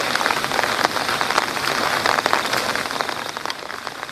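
Steady heavy rain: a dense hiss of countless small drop impacts, easing off a little near the end.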